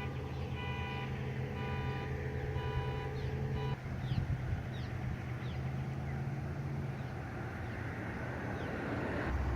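A car alarm sounding the horn in repeated short honks, about one a second, which stop about four seconds in. A steady low rumble of vehicles continues underneath.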